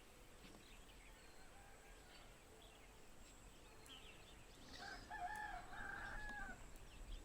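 A rooster crowing once, a single drawn-out call of about two seconds starting roughly four and a half seconds in, over faint outdoor ambience with small bird chirps.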